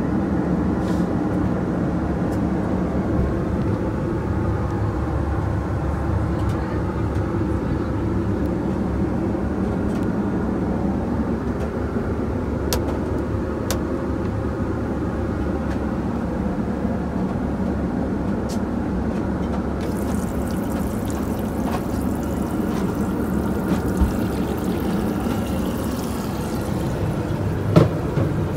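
Steady low rumble of an Airbus A320 in cruise, engines and airflow heard from inside the cabin lavatory. A few light clicks of handled fittings sound over it, with a faint higher hiss for several seconds past the middle and a sharper knock near the end.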